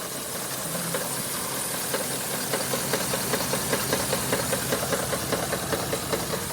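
Ford 5.4-litre three-valve V8 idling with a steady, even knock, about four a second, clearer from about two seconds in. The owner doubts it is the timing chain and suspects the cam phasers.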